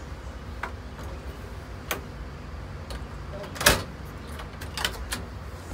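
A few separate sharp clicks and knocks at a front door, roughly one a second, the loudest a knock about two-thirds of the way through, over a low steady hum.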